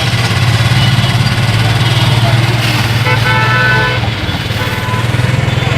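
A vehicle engine running steadily with a low throb, and a vehicle horn honking briefly about three seconds in.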